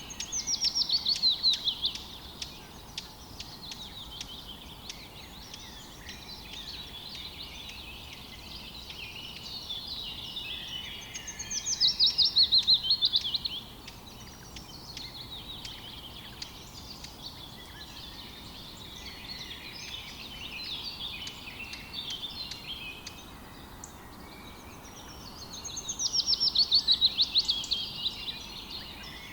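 Birds singing: one bird repeats a loud song of rapid notes falling in pitch, three times about twelve seconds apart, over steady softer chirping of other birds.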